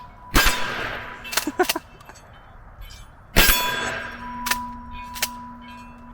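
Two shotgun shots about three seconds apart, each followed by a steel target ringing with a held metallic tone. A few smaller sharp metallic clacks come between and after the shots.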